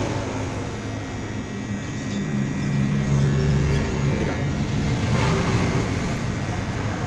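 Corded HK-900 electric hair clipper running as it cuts hair, a steady low buzz mixed with hiss, a little louder from about two seconds in.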